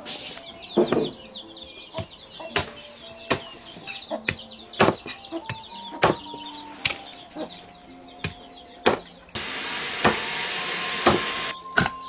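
Meat cleaver chopping pork bones into pieces on a thick wooden chopping block: sharp, irregular chops about once or twice a second. A steady hiss joins for about two seconds near the end.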